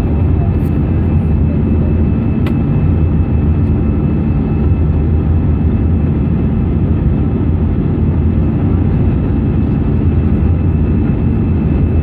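Steady cabin noise of an Airbus A319 in flight: the drone of its jet engines and rushing air, heard from a window seat beside the wing, with a faint steady high tone over it. One brief click about two and a half seconds in.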